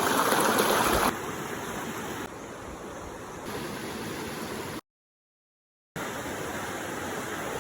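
River water rushing, a steady noise with no distinct tones, loudest in the first second. Its level jumps abruptly about a second in and again around two and three and a half seconds, then it cuts out completely for about a second before coming back.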